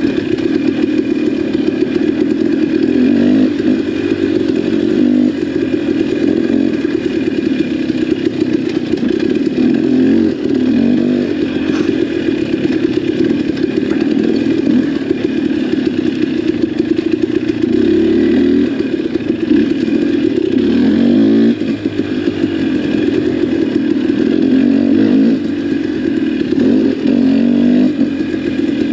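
KTM XC-W two-stroke dirt bike engine running on the throttle, its pitch rising and falling again and again as the rider rolls on and off.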